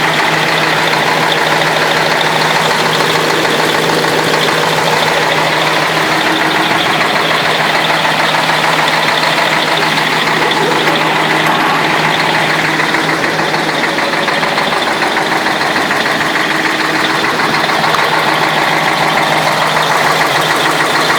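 YaMZ-6581.10 V8 diesel engine idling steadily, with a knock in its running whose cause the owner does not know.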